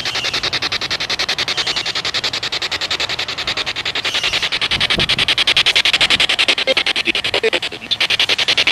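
SB7 spirit box sweeping through radio stations, played through a small external speaker: steady static chopped about a dozen times a second, with brief snatches of broadcast sound. The hosts read these snatches as spirit voices saying "I didn't do it" and "need to leave".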